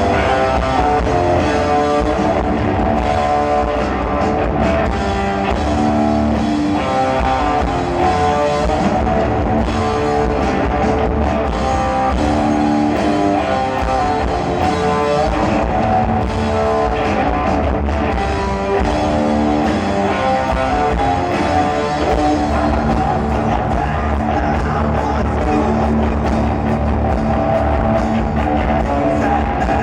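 Live rock band playing loud and without a break: electric guitar and drum kit.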